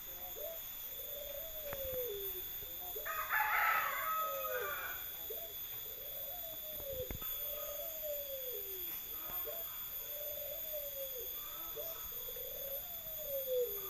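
An animal calling over and over, each call a falling note about every two seconds. A louder, higher burst of calls comes about three to four seconds in.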